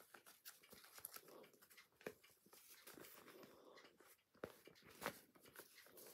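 Faint, irregular rustling with scattered light clicks and taps: a cross-stitch project being handled.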